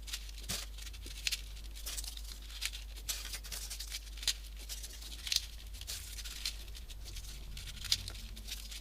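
Folded paper pieces of a 3D origami model being slotted onto the row below, giving irregular soft paper rustles and light clicks a few times a second.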